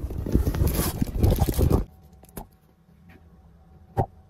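Close rustling and scraping for about two seconds, then a short click and, near the end, a sharp knock.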